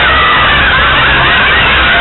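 Loud music from a live stage show's sound system, with sliding, wailing tones over it.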